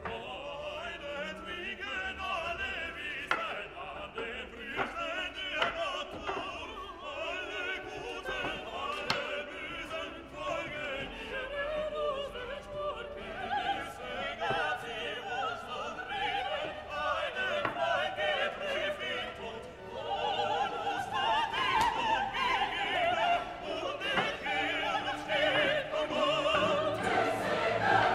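Background music: operatic choral singing with orchestra, growing louder about two-thirds of the way through. A few light knocks of wooden parts being handled show faintly under it.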